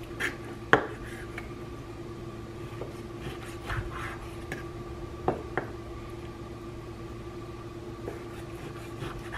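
Chef's knife slicing raw bacon on a wooden cutting board, the blade knocking sharply on the board a few times, loudest just under a second in and again about five seconds in. A steady hum runs underneath.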